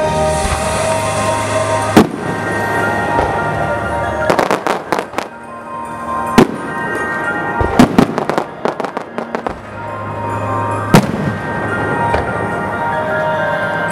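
Aerial firework shells bursting with music playing: single sharp bangs about two, six and eleven seconds in, and two quick runs of rapid crackling reports, one about four seconds in and a longer one around eight to nine seconds.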